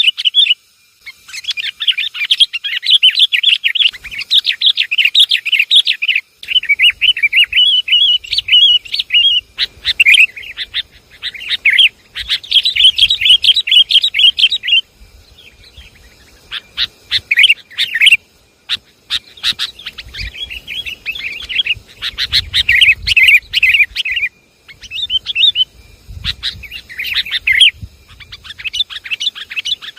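Sooty-headed bulbuls (kutilang) chattering in dense, rapid runs of high notes, a noisy lure call used to draw bulbuls in. The chatter breaks off briefly a few times in the second half.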